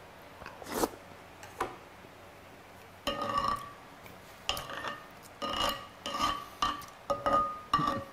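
Wooden spoon scraping sea urchin roe across a dark ceramic plate in a string of repeated strokes starting about three seconds in, the plate ringing faintly with each scrape. Before that, two short eating sounds from a mouthful of roe.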